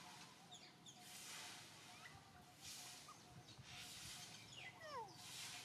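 Faint outdoor ambience of birds chirping, with a high hiss that swells and fades every second or so. A falling whistle comes near the end.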